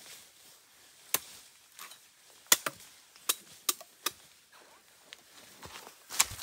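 A blade chopping into bamboo shoots: about seven sharp, irregular strikes.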